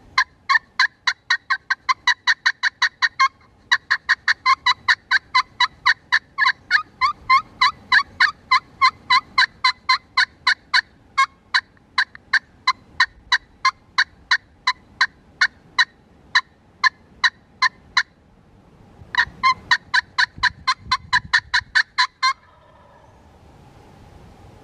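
A long, fast string of hen-turkey yelps, loud and close, at about four notes a second. It pauses briefly about three seconds in and again about eighteen seconds in, then stops a couple of seconds before the end.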